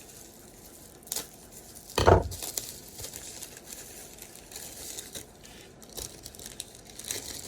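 Plastic packaging crinkling and rustling as it is handled, with a sharp click about a second in and a louder knock around two seconds in.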